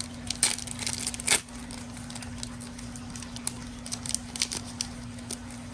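A basketball trading-card pack wrapper being torn open and crinkled, with a sharp rip a little over a second in, then light rustling and clicks as the cards are handled. A steady low electrical hum runs underneath.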